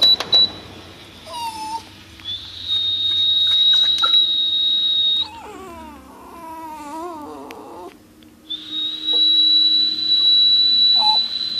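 Two long, steady high-pitched tones, each about three seconds and each sliding up slightly as it starts. Between them a miniature pinscher gives a wavering whining howl, the dog reacting to the high-pitched noise.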